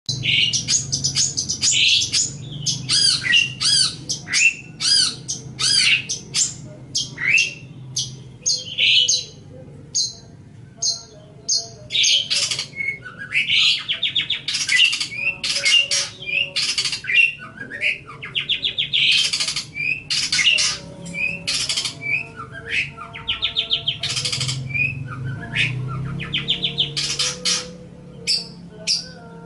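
Long-tailed shrike (cendet) singing a rapid, varied song: quick whistled notes mixed with harsh squawky bursts and fast buzzy trills, in phrases with short gaps between them.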